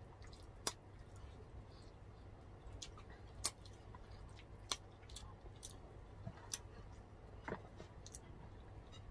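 Faint chewing and mouth sounds of people eating rice and fish with their hands, with a handful of short, sharp clicks scattered through.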